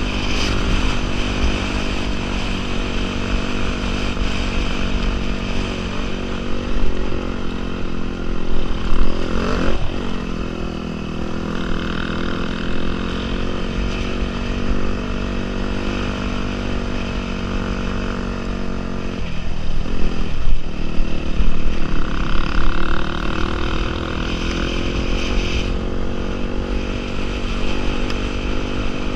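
Dirt bike engine running steadily at trail speed, heard close up, with wind rushing on the microphone. About ten seconds in the engine note dips and then climbs again under throttle. Around twenty seconds it falls off briefly before opening up louder.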